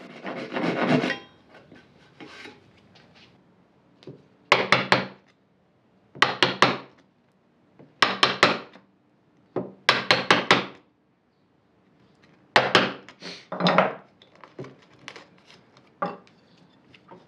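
A backed dovetail saw finishing a cut in beech during the first second. Then a chisel chops out the waste between dovetails, with short groups of three or four sharp wooden taps every couple of seconds.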